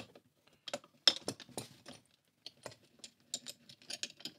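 Small metal clicks and clinks as a tri-clamp is fitted around a pump head's flange and handled into place, the sharpest click about a second in, a brief lull, then a quick run of lighter clicks.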